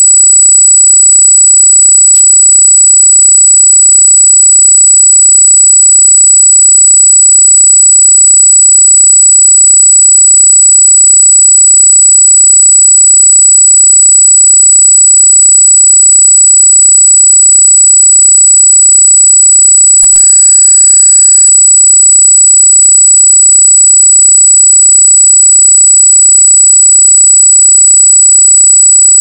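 Loud, steady high-pitched electronic squeal made of several high tones at once: an unexplained noise on the recording's audio, not a sound from the scene. About twenty seconds in there is a click and the tones change briefly.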